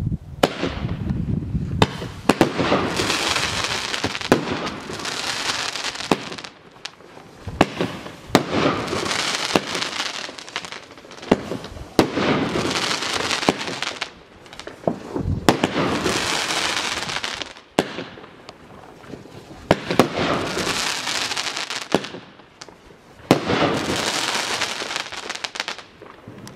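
Blackboxx Heyloo 13-shot, 30 mm fireworks cake (battery) firing. Sharp launch and burst reports come one after another, each followed by about two seconds of dense crackling from the gold crackling palm effects, repeating every few seconds.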